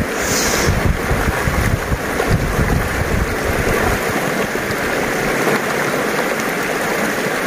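Shallow, fast river rushing over stones, a steady noise of flowing water. A low rumble under it drops away about four seconds in.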